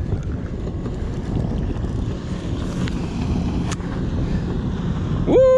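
Wind buffeting the microphone over the low drone of a passing motorboat. Near the end comes a brief, loud shout that rises and then falls in pitch.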